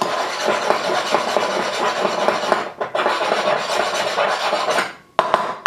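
Metal AK muzzle brake rubbed back and forth across a flat file on a table: a continuous metal rasping in two long spells with a short break between, filing material off the brake so it can screw further onto the barrel. A couple of light clicks near the end.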